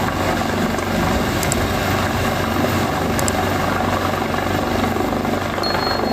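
Helicopter flying close by, its rotor beating steadily.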